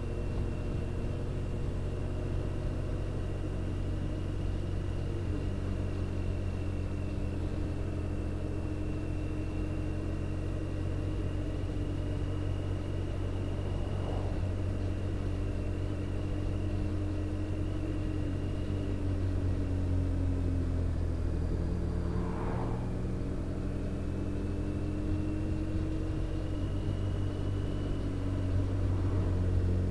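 BMW R 1250 RT boxer-twin engine running at a steady cruise under wind and road noise, its pitch drifting gently up and down with speed. A car passes close the other way about halfway through.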